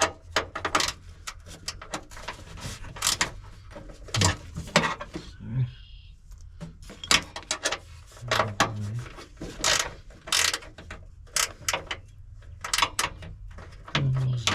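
Hand ratchet with a 10 mm socket clicking in quick runs of strokes as a bolt is worked loose, with short pauses between the runs.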